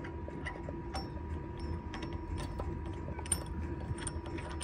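Faint, scattered metallic clicks and taps of a bolt, washer and aluminum spacer being handled and fitted into the exhaust mount by hand, over a steady low hum.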